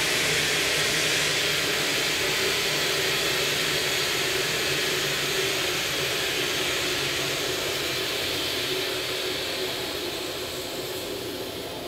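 Automatic fire extinguisher discharging after its fusible link has released: a steady hiss of agent spraying from the nozzle, slowly fading.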